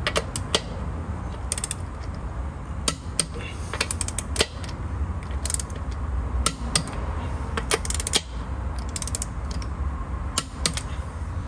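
Ratcheting torque wrench worked in short strokes on a wheel's lug nuts, tightening them by hand to torque spec: about ten brief bursts of quick pawl clicks spaced a second or so apart, over a low steady hum.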